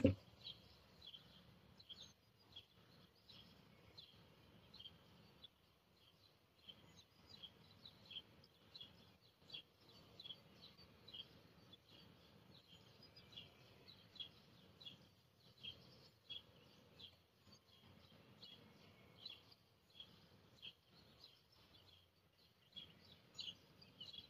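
Faint bird chirping: short high chirps repeating irregularly, one or two a second, over near silence. A single thump comes right at the start.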